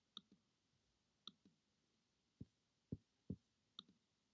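Near silence with about eight faint, irregular clicks and taps from operating a computer.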